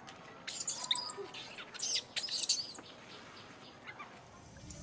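Young macaque squealing: a quick series of shrill, very high cries that bend up and down in pitch through the first three seconds, and one fainter cry near the end.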